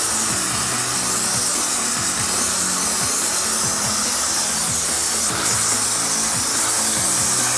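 Background music over a steady hiss from a HOTJET subcritical hot-water jet spraying from its nozzle onto a dirty metal surface and blasting the grime off.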